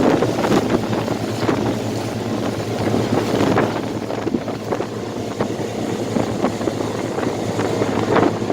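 Twin 60 hp Mercury four-stroke outboards humming steadily at low speed, under water splashing and rushing along the boat's hull and wind buffeting the microphone.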